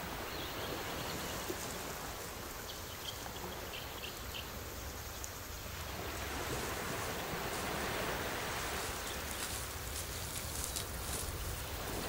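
Wind buffeting the microphone over the wash of surf on the beach, a steady rushing that grows a little louder about halfway through, with a few faint high chirps in the first half.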